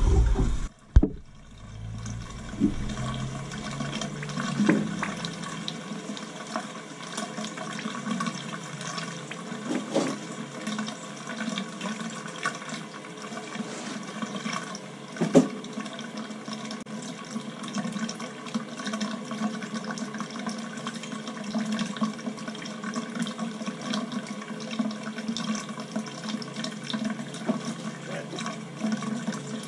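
Water and trapped air spurting from a boiler purge hose into a utility sink while a hydronic heating zone is purged. The flow is steady, with crackling from air in the line and a few sharper pops.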